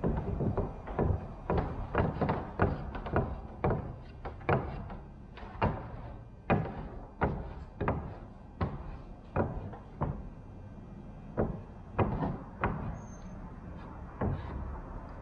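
Irregular hollow knocks and thumps, one or two a second, as a small fabric-covering iron is pressed and set down along the edge of a fabric-covered wooden stabilizer.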